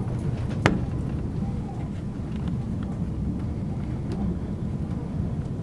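Train running at speed, heard from inside the carriage: a steady low rumble of wheels on rails, with one sharp click less than a second in and a few faint ticks.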